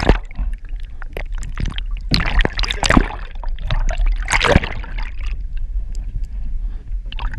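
Underwater audio from a submerged action camera's housing: a constant low rumble of moving water, with scattered clicks and knocks and two bursts of rushing, bubbling water, the first about two seconds in and the second about four and a half seconds in.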